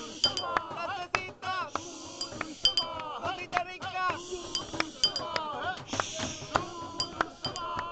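Handpan (hang drum) played by hand: short, ringing metallic notes and light struck taps in a loose rhythm. A sliding, voice-like melody bends up and down over it.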